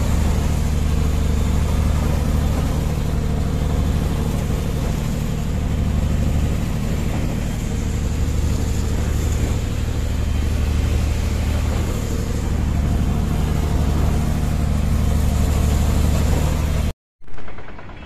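Engine of a shotcrete spraying machine running steadily, with a noisy hiss over its low drone. It cuts off abruptly near the end.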